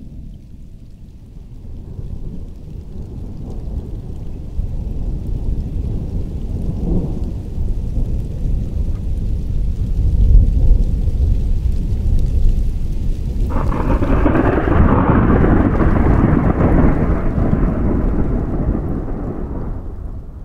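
Thunderstorm: a long low rumble of thunder swells over several seconds. About two-thirds of the way in, a sudden louder crash rolls on for several seconds and fades toward the end.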